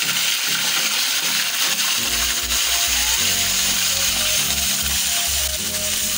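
Cumin seeds, dried red chillies and curry leaves sizzling steadily in hot oil as a tempering (baghaar) fries. Background music comes in about two seconds in.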